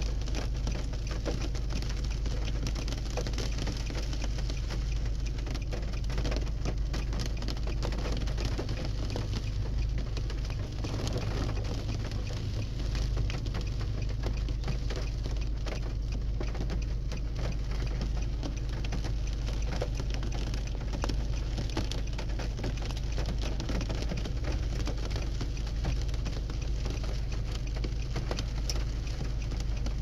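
Steady rain falling, with many small drops pattering.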